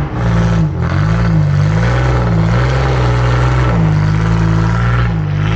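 Truck engine revving hard at full throttle, its pitch rising and falling over and over as it is pushed through snow on tyres not rated for snow.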